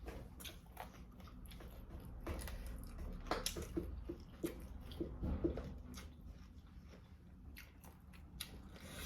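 Eating sounds: food being bitten and chewed, with irregular soft mouth clicks and smacks.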